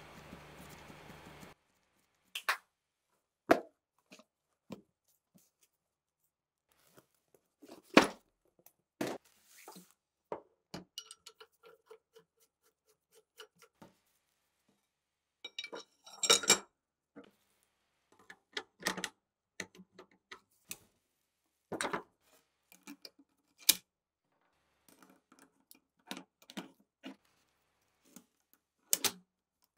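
Metal parts and tools being handled on a workbench: scattered clinks, taps and knocks, some sharp and loud, with short silences between. A steady background noise cuts off about a second and a half in.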